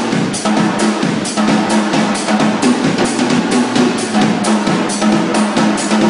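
Tama acoustic drum kit played solo: fast, dense strokes on snare and bass drum with rolls, running on without a break.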